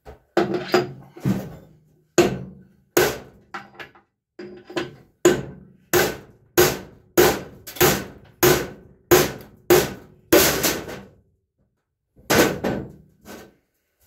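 Repeated hammer blows on the steel deck of a Case Ingersoll RM mower deck, driving a stuck cast spindle hub down out of its mounting. About twenty sharp metallic strikes come at a steady pace of one every half second or so, each with a short ring, with a brief pause near the end before a few more.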